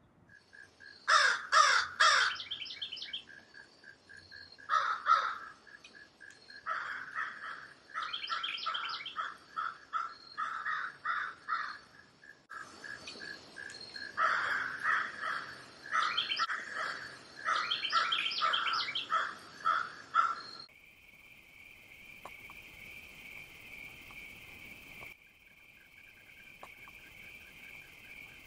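Woodland birds singing and calling, with a cluster of loud calls near the start and more bursts of song through the first two-thirds. About three-quarters through it cuts to a steady, even high-pitched chorus with no birdsong.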